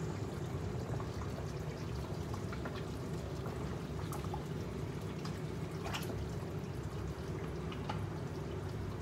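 Pot of tom yam soup bubbling on the stove, with scattered small pops over a steady low rumble.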